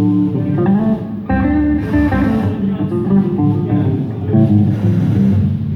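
Guitar played at a sound check, running through a string of notes with bass guitar underneath.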